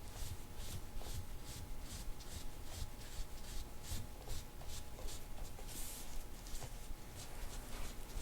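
Soft-tissue scraping tool drawn over the skin of a patient's back in quick repeated strokes, a rhythmic rasping at about two to three strokes a second.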